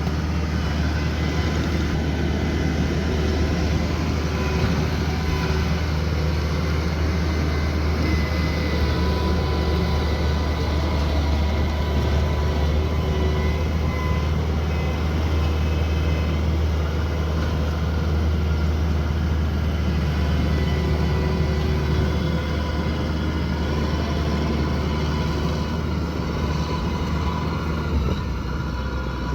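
Rice combine harvester running steadily under load, a constant low engine drone mixed with the noise of the threshing machinery.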